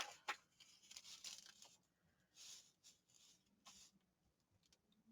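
Near silence with a few faint, brief rustles of paper being handled on a craft desk.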